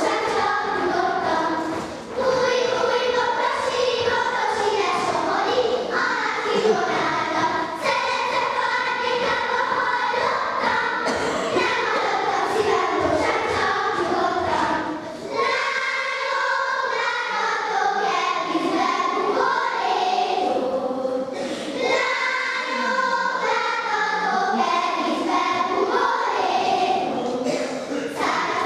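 A group of young girls singing a Hungarian folk song together in unison for their circle dance, with a brief pause about halfway through before the singing resumes.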